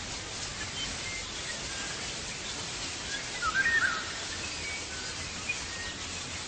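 Birds chirping over a steady outdoor hiss, with a short burst of quick, twisting bird notes about three and a half seconds in, the loudest sound here.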